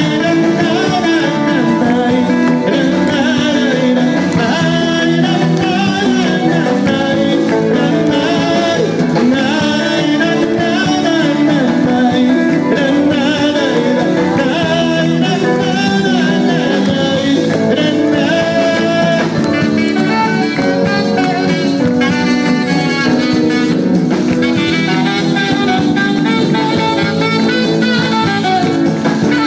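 Live band playing loud, amplified Latin American music: singing over guitars and drums, with a horn.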